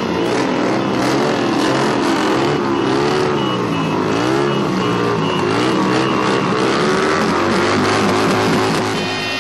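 Several cruiser motorcycles riding slowly past one after another, their engines overlapping and rising and falling in pitch as they rev and pass.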